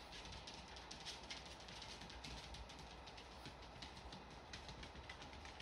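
Near silence: faint steady room hiss with light, rapid crackling clicks.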